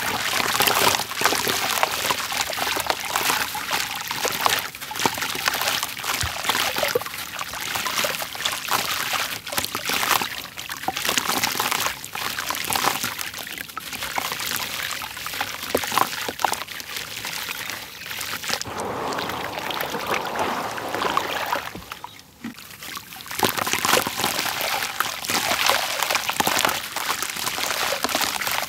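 A bucket-moulded block of gritty red dirt crumbled by hand and dipped into a tub of water: crunchy crumbling, with a steady pouring and trickling of grains and chunks splashing into the water. It eases off briefly about three-quarters of the way through.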